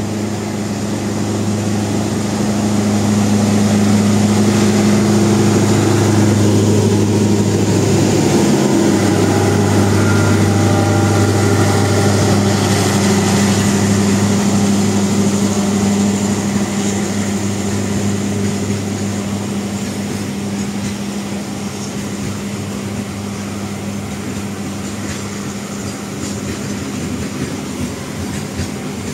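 CC202 diesel-electric locomotive passing with a steady engine drone, followed by its train of freight wagons rolling by on the rails. The drone is loudest as the locomotive goes past and eases off as the wagons keep rolling.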